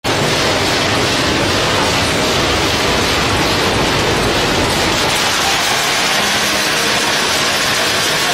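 Continuous almond roasting line running: a loud, steady, even machine noise with no distinct knocks.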